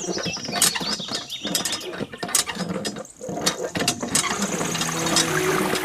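Irregular mechanical clicking and rattling, with short high chirps over it; music fades in near the end.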